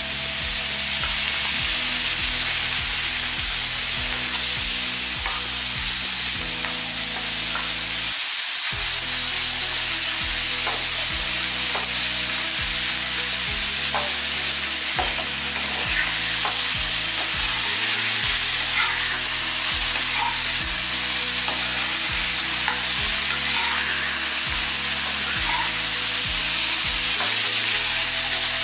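Small turmeric-and-salt-coated fish (chuna machha) sizzling in hot oil in a shallow pan: a steady loud frying hiss, with the light scrape and click of a spatula turning them now and then.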